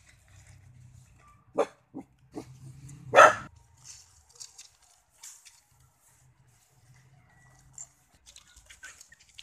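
Dogs at play: three short yips about a second and a half in, then one louder bark just after three seconds.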